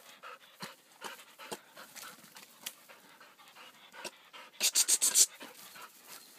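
A dog panting hard in quick, even breaths, with a louder run of about six breaths a little over four and a half seconds in.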